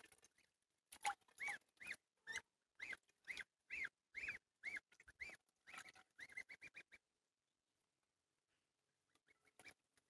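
Goslings peeping: a series of short, high rising-and-falling calls about two a second, coming faster just before they stop about seven seconds in, with a few faint calls near the end.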